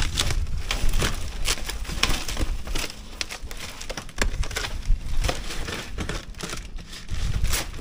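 Clear plastic wrapping crinkling and tearing as it is slit with a box cutter and pulled away from a styrofoam-packed box, in irregular crackles and rustles.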